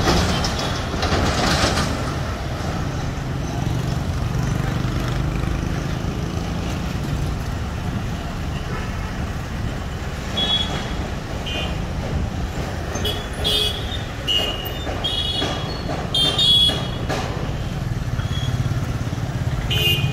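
Road traffic with engines running steadily and vehicle horns honking, several short horn blasts coming in quick succession in the second half and one more near the end.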